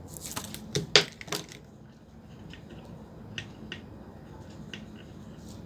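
A small earphone magnet tapping and clicking against the metal heating element of an opened electric kettle: a cluster of sharp clicks in the first second and a half, the loudest about a second in, then a few faint ticks.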